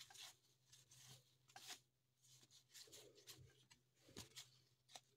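Faint rustling and sliding of cardboard baseball cards as a stack is flipped through one card at a time by hand, a dozen or so short irregular scrapes.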